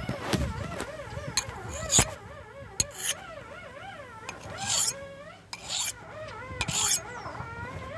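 Knife blade drawn across the fine side of a sharpening stone, in short rasping strokes about once a second.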